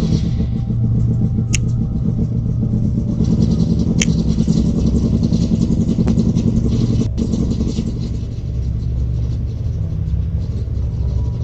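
Motorcycle engine running with a steady low rumble, swelling a little in the middle and easing off about eight seconds in, with a few sharp clicks over it.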